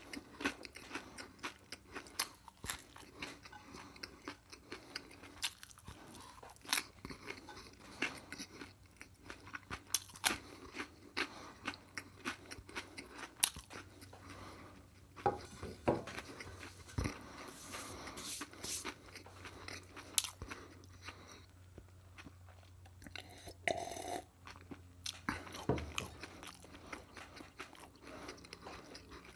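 Close-miked chewing and crunching of food in the mouth, with irregular sharp crunches and bites, wet mouth clicks, and a faint low hum underneath for much of the time.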